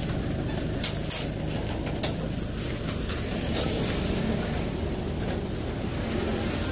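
A truck engine idling with a steady low rumble. A few sharp clicks and knocks come in the first two seconds as the casket is handled at the truck's open back.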